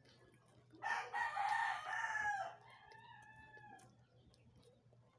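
A rooster crows about a second in, one long call lasting nearly two seconds, followed by a fainter call just after.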